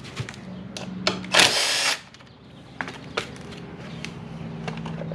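A cordless drill-driver runs in one short burst about a second and a half in, driving out a body-panel screw on a scooter, among scattered light clicks and taps of tools and plastic panel parts. A low steady hum sits underneath.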